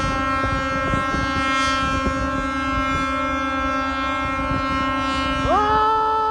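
Several boat horns held together in a steady, unchanging chord. About five and a half seconds in, another horn joins, its pitch sliding up as it starts. A rumble of wind on the microphone runs underneath.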